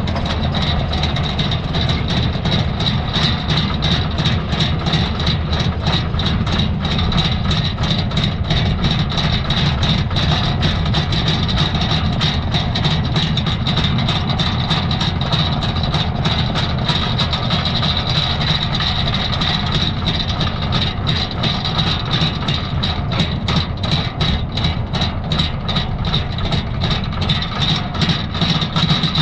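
Heavy rumble of a 16-axle Faymonville heavy-haul trailer's tyres and running gear rolling through a right turn under a superload, heard close up at the booster axles. A steady high whine runs over it, with dense crackling that gets busier in the last third.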